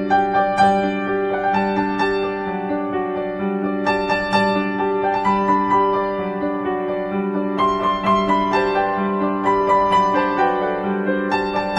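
Background piano music: a melody over a repeating lower accompaniment.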